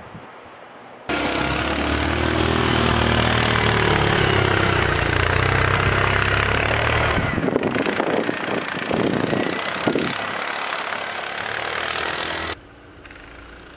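Engine of a small ridden vehicle running, steady at first, then moving off across the snow and fading. It starts abruptly about a second in and falls away suddenly near the end.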